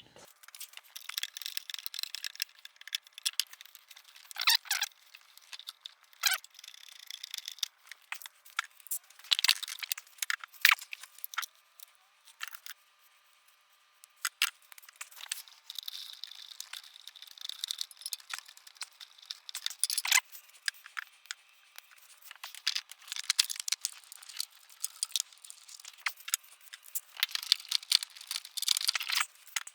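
Irregular clicks, scrapes and rattles of hand tools on metal and plastic parts as a worm-gear hose clamp is loosened and parts are worked free. There is a brief lull about halfway through.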